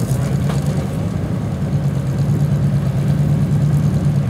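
Off-road 4x4 truck's engine running, a steady low drone.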